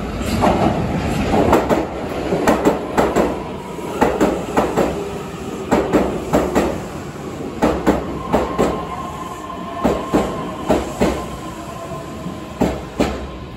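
Osaka Metro 400 series six-car subway train running into a station: groups of wheel clacks over the rail joints come every second or two and grow further apart as it slows. A steady whine joins in the second half.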